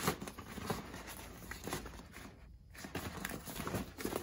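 Deflated vinyl inflatable pool rustling and crinkling as it is unfolded and handled, in irregular scrapes and soft knocks, with a brief lull about two and a half seconds in.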